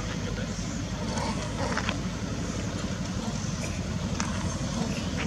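Steady low rumble of outdoor background noise, with a few faint clicks about two seconds in and again near the end.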